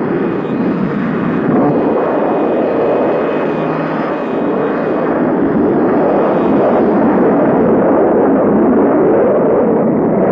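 Animated-TV rocket-engine sound effect of a spaceship blasting off: a loud, steady rushing noise that grows slightly louder, with a faint high whine in the first half.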